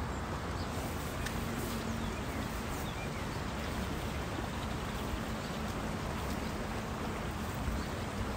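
Flowing stream water, a steady rush.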